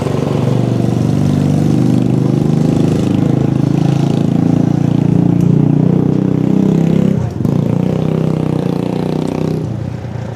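An engine running steadily, its pitch wavering a little, with a short drop in level about seven seconds in.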